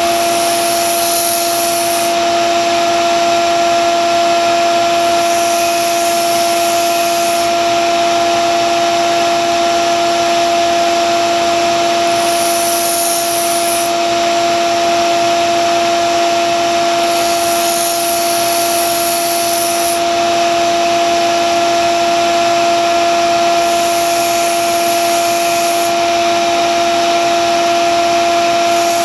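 Grizzly narrow-belt sander running with a steady motor hum while a vintage Wüsthof knife blade is ground on the belt. About six grinding passes of roughly two seconds each add a high hiss over the hum.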